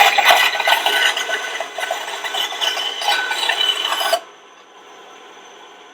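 Ryobi 9-inch bandsaw with a 1/4-inch, 6-teeth-per-inch Bosch blade cutting through a thick piece of wood at a 45-degree bevel, a rough rasping cut that stops suddenly about four seconds in. After that the saw runs free with a quieter steady hum.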